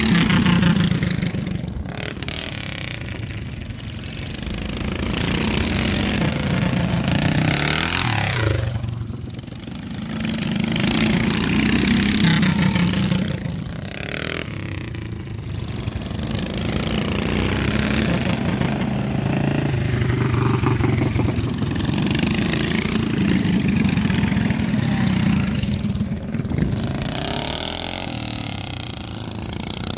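Symco minibike engines running hard around a dirt flat track, revving up and down as the bikes accelerate and pass, with one engine sweeping down in pitch about eight seconds in.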